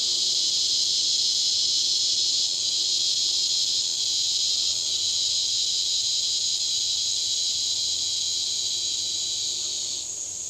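Steady, high-pitched, cicada-like buzzing of an insect chorus, with one part of it cutting off shortly before the end.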